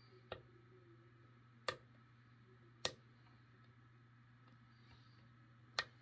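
Four sharp, irregularly spaced metallic clicks from picking an ASSA 600 pin-tumbler lock: the pick working the standard pins in the brass cylinder core.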